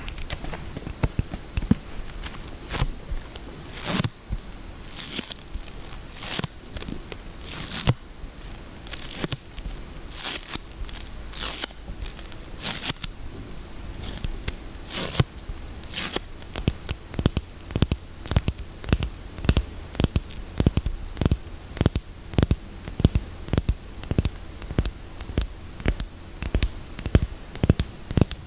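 Soap packaging being torn open and unwrapped, with crinkly, tearing rustles for about the first half. It then turns to a quick run of short, crisp taps on the soap, several a second.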